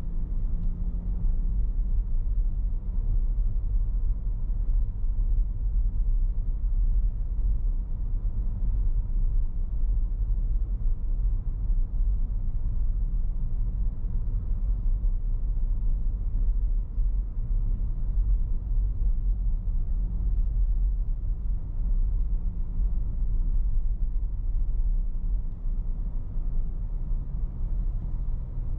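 Car driving along a paved street: a steady low rumble of road and wind noise.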